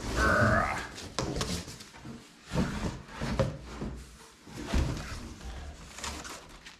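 Irregular rustling, knocks and bumps of new fuel-tank parts and packaging being handled and unpacked from their box.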